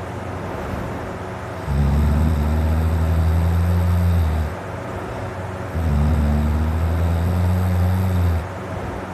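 A man's deep snoring: two long, low-pitched snores of about two and a half seconds each, the first starting about two seconds in and the second about six seconds in, with a quieter hiss between them.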